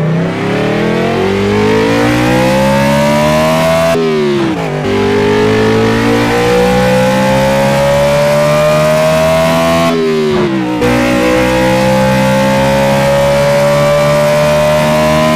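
Car engine sound effect accelerating through the gears: the engine note climbs steadily, then drops sharply at a gear change about four seconds in and again about ten seconds in, before climbing once more.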